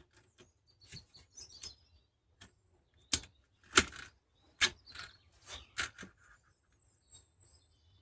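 Irregular sharp clicks and knocks of hard plastic and metal being handled as a chainsaw sharpener attachment is fitted and clipped onto a chainsaw, the loudest few knocks between about three and six seconds in. Birds chirp faintly in the background.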